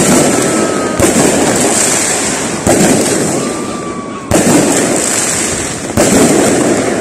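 Aerial fireworks going off, a string of loud bangs about every second and a half over dense, continuous crackling.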